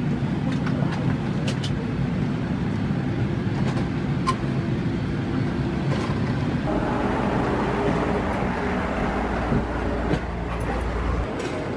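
Steady low rumble and air hiss inside an Airbus A380 cabin. About seven seconds in, the noise turns brighter and hissier.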